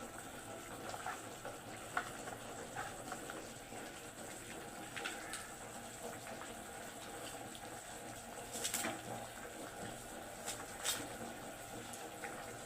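Soft, steady watery noise with a few short clicks scattered through it.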